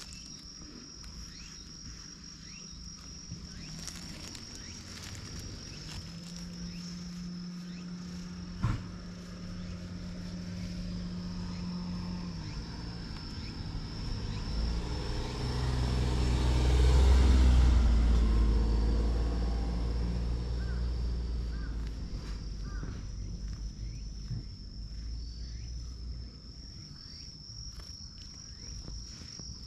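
A vehicle's engine passes nearby, growing louder to a peak about halfway through and then fading away. Under it runs a steady high-pitched insect trill.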